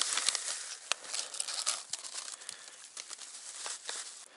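Plastic bag crinkling and rustling as it is handled and folded, loudest at first and dying down toward the end.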